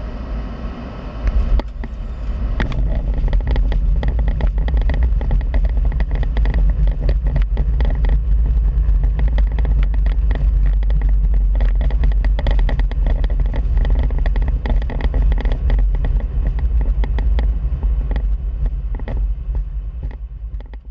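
Boeing 737-800 touching down with a sharp thump about a second in. This is followed by a loud, steady rumble of engines and wheels rolling on the runway, with a run of small knocks. The rumble grows louder a second or so after touchdown, as reverse thrust would come in, and fades out near the end.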